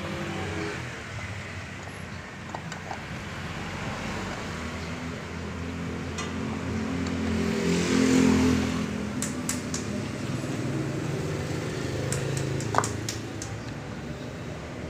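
A vehicle engine grows louder to a peak about eight seconds in and then fades away, over a steady background hum. A few light metallic clicks come from clutch plates and a pressure plate being handled, with one sharp click near the end.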